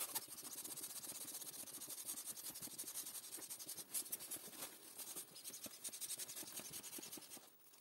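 Gold foil balloon crinkling and rustling as it is handled, a faint, fast, irregular crackle.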